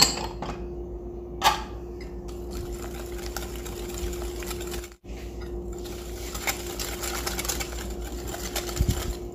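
Electric hand mixer running steadily, beating sugar, oil and egg together in a bowl as a wet cake batter. Two sharp knocks come in the first two seconds, and the sound drops out briefly about five seconds in.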